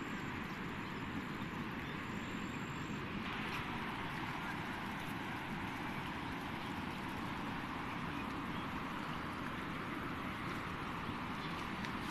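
Muddy floodwater rushing steadily through a flooded crop field.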